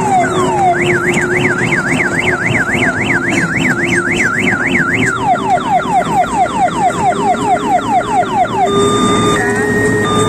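Electronic siren sound effect cycling through its patterns like a car alarm: falling whoops, then from about a second in a rapid up-and-down warble, then quicker falling whoops about four a second, and near the end a steady two-pitch beeping. A steady low hum runs under it.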